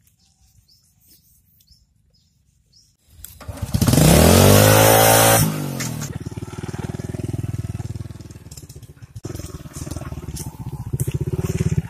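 Small underbone motorcycle engine coming in about three seconds in with a loud rev that rises and falls in pitch, then running steadily at a lower pitch as the bike is ridden off.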